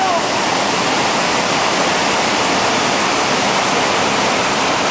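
Whitewater rapid rushing steadily over rocks, a constant, even roar of churning water.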